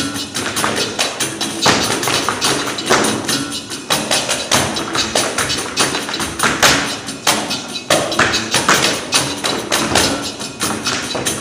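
Tap-dance footwork: shoes striking the stage in rapid, dense rhythmic volleys, several strikes a second, with music underneath.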